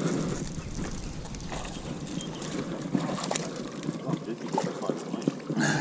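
A small bass hooked on a baitcasting rod being wound in: many small clicks from the reel and light splashing of water, over wind noise on the microphone.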